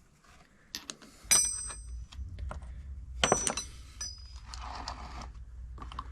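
Steel socket-set tools clinking and knocking against each other as they are handled, with two louder metallic clanks that ring briefly, about a second in and about three seconds in, among lighter clicks.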